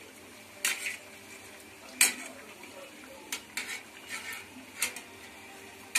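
Wire-mesh spider strainer clinking and scraping against a metal kadai a few times at uneven intervals, the loudest knock about two seconds in, over the steady sizzle of sweet appams frying in hot oil.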